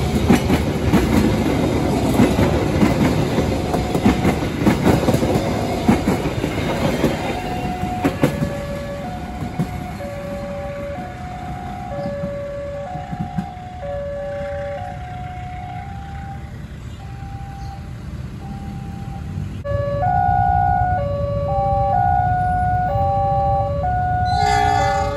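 Passenger train coaches rolling past on jointed rail with a heavy wheel rattle that fades after about eight seconds. A level-crossing warning alarm then rings in two alternating tones, louder from about twenty seconds in.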